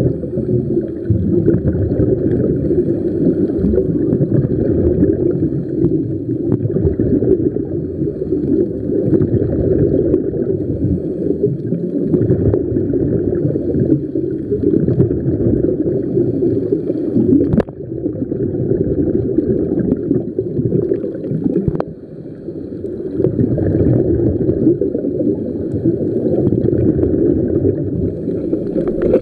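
Steady, low, muffled underwater rumble of water moving around a camera in a waterproof housing while diving. Two sharp clicks, a little after the middle and about four seconds later, each come with a brief dip in the noise.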